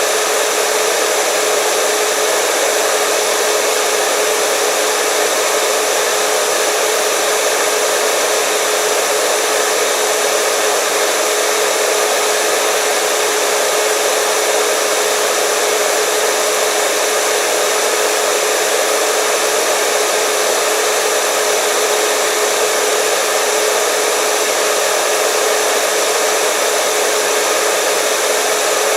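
Hair dryer running steadily: a constant rushing of air with a steady motor whine, unchanging throughout.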